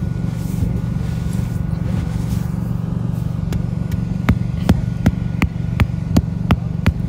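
A vehicle engine running steadily with a low, even rumble. About halfway through, sharp evenly spaced clicks join it, roughly two or three a second.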